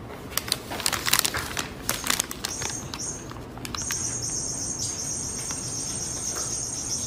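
Crackling rustle of a paper bag being lowered over a cat's head, then from about halfway a steady high trill of crickets chirping.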